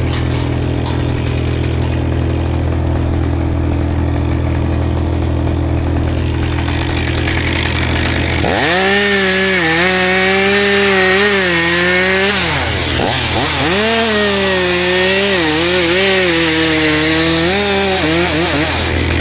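A chainsaw revs up about halfway through and cuts into wood at full throttle in two long passes, its pitch wavering under load, with a brief drop between them. Under it runs a steady low engine drone.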